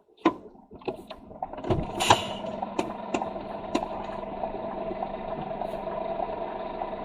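A few clicks and a low knock, then a steady engine hum sets in about two seconds in and holds: a lorry's diesel engine running.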